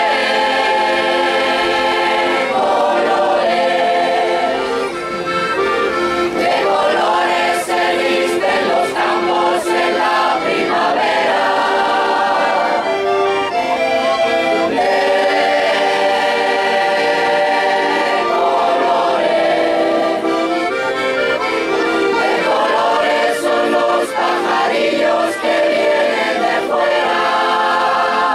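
Mixed choir of men and women singing together, accompanied by an accordion, in phrases of held notes.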